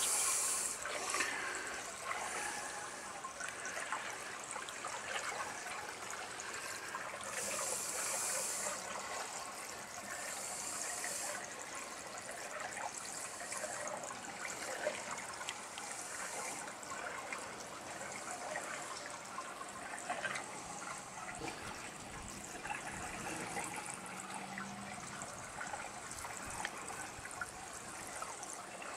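Water trickling and splashing steadily in a koi tank, with a few louder spells of hiss and small splashy clicks.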